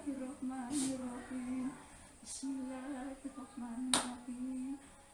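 A voice chanting in long, held notes that step up and down in pitch, pausing briefly between phrases. A few short, sharp hissing or slapping noises cut across it, the loudest about four seconds in.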